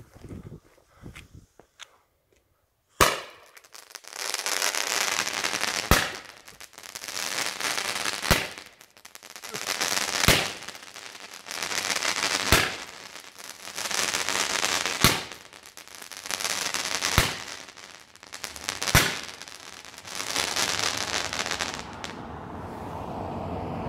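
A large 20 mm Czech Roman candle firing eight sharp shots roughly two seconds apart, starting about three seconds in. Each shot is followed by a steady hiss of burning sparks that fades before the next, and the last hiss trails off near the end.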